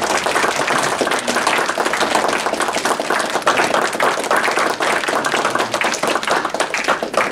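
Audience applauding: many people clapping their hands steadily.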